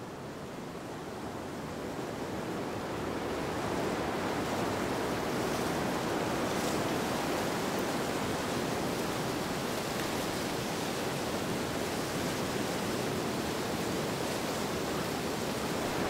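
Steady rushing noise with no distinct events, like surf or falling water. It swells over the first few seconds and then holds level.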